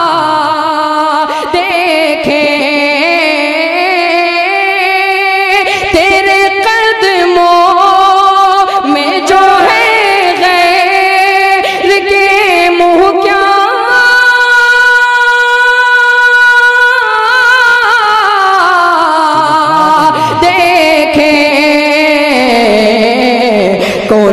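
A man singing a naat solo into a microphone, drawing the lines out in long, winding notes, with one note held steady for about three seconds in the middle.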